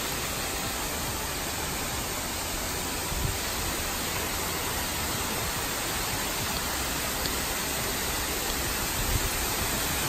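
Steady rushing noise of a tall multi-stranded waterfall plunging into a pool, with a couple of brief soft low thumps.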